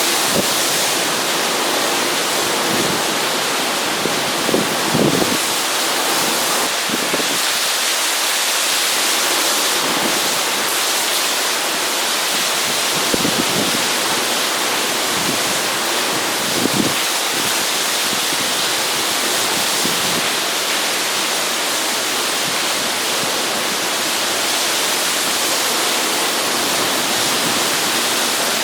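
Heavy rain pounding down steadily in a hurricane's outer rain band, a dense even hiss. A few brief low gusts of wind buffet the microphone, around five seconds in and twice more later.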